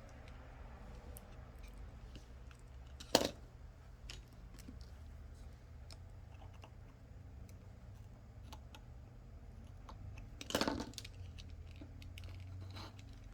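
Small handling clicks and faint crackles as strips of double-sided adhesive are handled with tweezers and laid on a smartwatch frame. There is one sharper click about three seconds in and a brief crackle of the adhesive or its backing film near the end.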